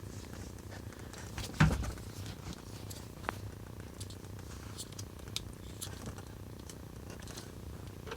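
Plastic bike-lock mounting bracket being handled and pressed onto a bicycle frame tube: one loud knock about a second and a half in, then scattered light clicks and taps, over a low steady hum.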